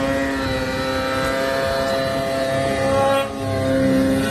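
Snowmobile engine held at high revs as the sled churns through deep powder, a steady high pitch that dips briefly about three seconds in and then revs back up.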